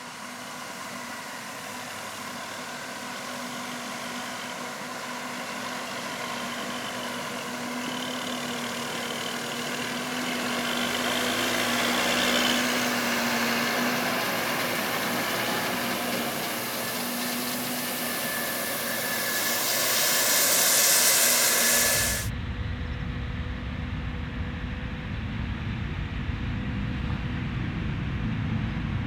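Heavy farm machinery engines running steadily with a hiss, growing louder over about twenty seconds. About 22 seconds in the sound changes abruptly to a deep low rumble with the higher hiss gone.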